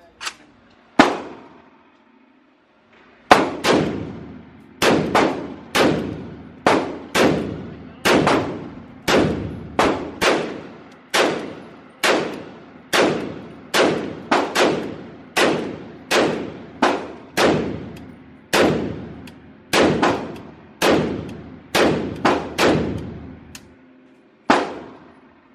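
Semi-automatic gunfire in an indoor range, each shot echoing. One shot comes about a second in, then a steady string of some thirty shots at roughly two a second, and a last single shot near the end.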